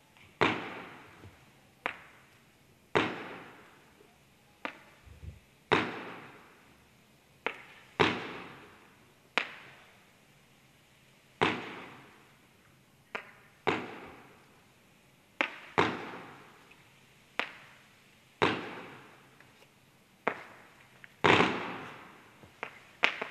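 Profi Line 8.16 20-shot firework battery with a red Falling Leaves effect, sold as a low-noise effect, firing its tubes one after another. A sharp pop comes roughly every one to two seconds, each followed by a rush that dies away over about a second.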